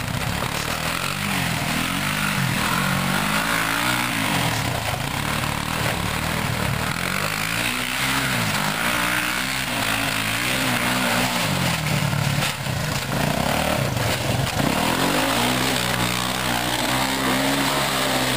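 Four-wheeler (ATV) engine revving up and dropping back several times as it is ridden in circles on ice and snow.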